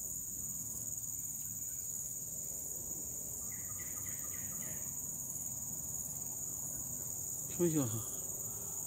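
Steady high-pitched insect chorus, one layer a continuous whine and another an evenly pulsing buzz, with a few faint chirps about halfway through.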